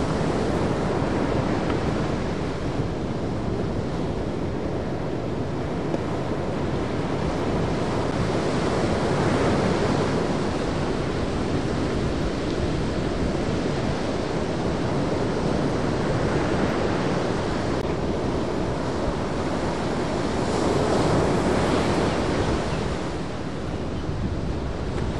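Ocean waves breaking in a continuous rush of surf, with wind on the microphone. The roar swells louder about a third of the way in and again near the end.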